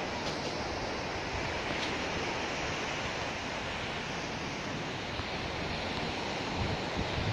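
Steady rushing noise with an uneven low rumble: wind buffeting the phone's microphone outdoors.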